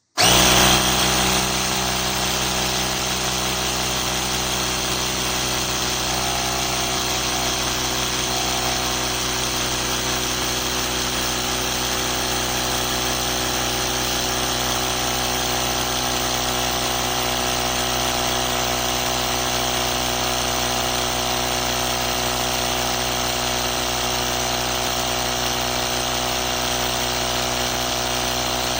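GOOLOO A3 jump starter's built-in 12 V tire inflator switching on suddenly and running steadily, a constant pitched motor hum. It is a little louder for the first second or so, then settles.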